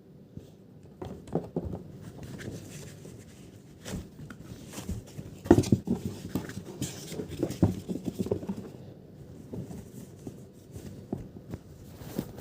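Hands handling unboxed items from a keyboard box, cable and packaging: irregular rustling, taps and knocks, the loudest about five and a half seconds in.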